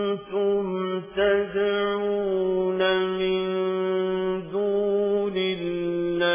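A reciter chanting the Quran in the melodic tajweed style, one voice holding long steady notes and stepping to a new pitch every second or two, with short breaks for breath between phrases.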